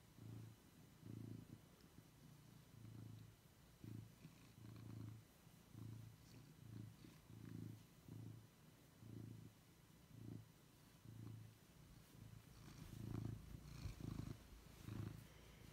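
Domestic cat purring while being stroked, a low rumble that swells and fades with each breath, a little more than once a second. Near the end it gets louder, with some rustling.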